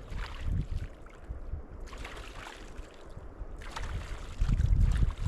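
River water splashing and sloshing as a person bathes in it, in three separate splashes, then heavier low sloshing near the end.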